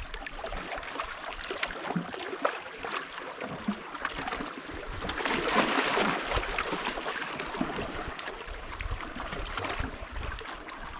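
Water lapping and splashing against the hull of a small fishing boat, with small irregular splashes throughout and a louder swell of splashing about halfway through.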